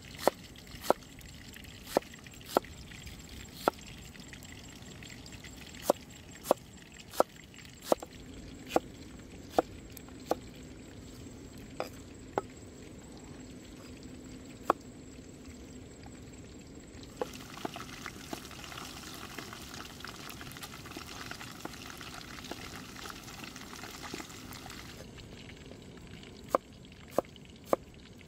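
Cleaver chopping vegetables on a wooden cutting board: sharp single knocks at irregular intervals, a half second to two seconds apart. In the middle they thin out to faint taps under a steady hiss, and they come quicker again near the end.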